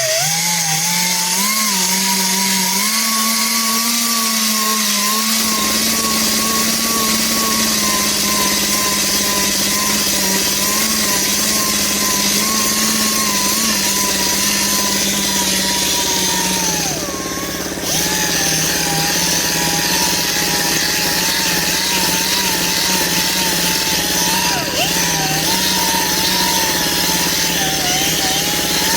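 A power sander spins a wet 3000-grit sanding pad against an aluminum wheel, its motor whining steadily with the pitch wavering as the pad is pressed on. It eases off briefly about two-thirds of the way through and then picks up again.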